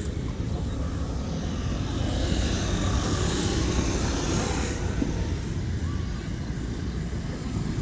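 Steady low rumble of outdoor street noise with road traffic.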